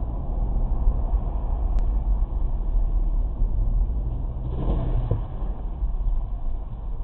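A car's engine and road noise heard from inside the cabin through a dash-cam microphone: a steady low rumble, with a brief louder rush of noise about five seconds in.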